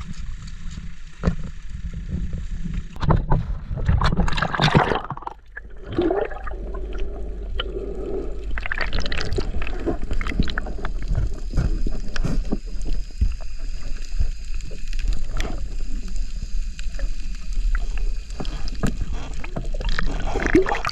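Sea water heard through an action camera taken underwater by a snorkeller: splashing about four seconds in, then a muffled, steady rumble of current with scattered knocks and clicks.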